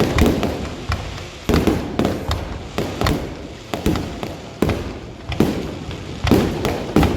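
Aerial fireworks exploding in quick succession, a string of sharp bangs about one or two a second, each followed by a rumbling, crackling decay.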